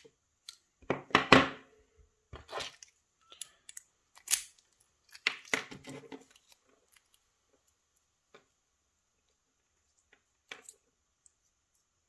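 Metal lock parts and snap-ring pliers being handled and put down: a series of sharp clacks and clicks, the loudest about a second in, thinning out after about six seconds with a last pair of clicks near the end.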